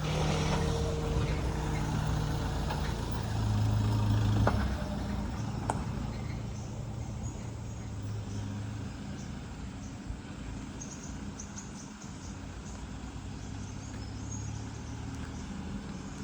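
A motor vehicle's engine running with a low steady hum. It is loudest over the first four or five seconds, then eases to a quieter rumble.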